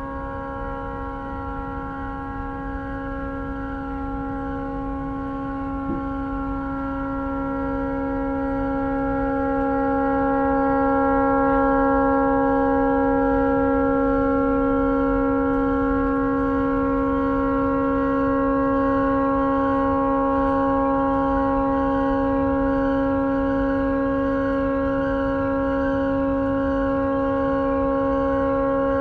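Tugboat horn stuck on, sounding one continuous chord of several steady pitches without a break; it swells somewhat louder around ten seconds in and then holds. The horn has malfunctioned and will not shut off.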